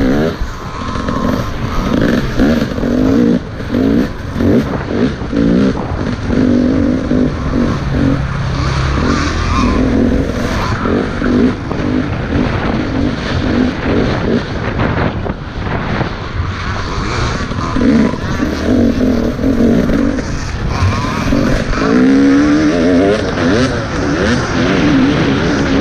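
Off-road dirt bike engine at race pace, its pitch rising and falling again and again as the throttle is opened and closed, heard from the rider's helmet camera.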